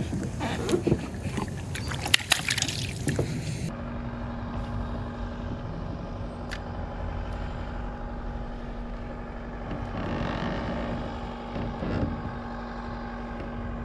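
Knocking and rustling handling noise for the first few seconds, then a boat motor running at a steady pitch.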